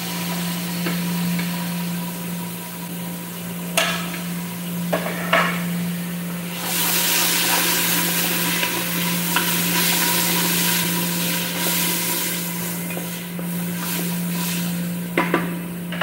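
Food sizzling in a hot aluminium pot on a gas stove as it is scraped in from a plate and stirred with a wooden spatula, with a few sharp taps of the spatula on the pot. The sizzle gets louder about six seconds in, over a steady low hum.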